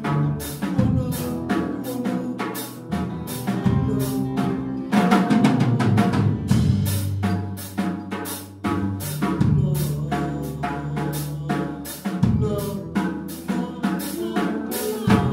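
Live band playing: a drum kit beating steadily with frequent snare and bass-drum hits, over bass guitar and electric guitar.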